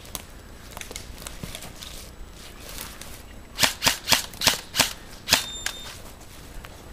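Airsoft rifle firing about six single shots, sharp cracks a few tenths of a second apart, starting about halfway through.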